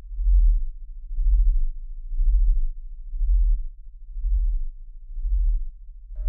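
A deep bass pulse throbbing evenly about once a second, each beat swelling and fading, six in all, with nothing higher over it.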